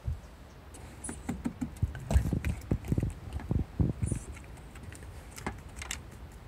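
A toy poodle's paws tapping and scrabbling on a car's cargo floor as it moves about: a run of irregular light knocks and thumps, busiest in the middle, with a few faint clinks.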